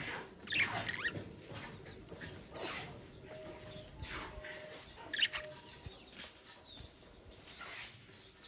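Budgerigars chirping: short, scattered chirps and quick squeaks that slide up and down in pitch, the sharpest one about five seconds in.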